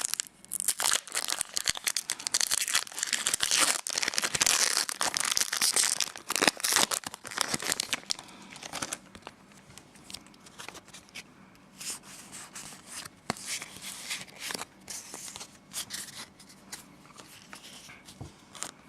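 Pokémon card booster pack's foil wrapper being torn open and crinkled, dense and loud for the first eight seconds or so, then giving way to quieter, scattered rustling.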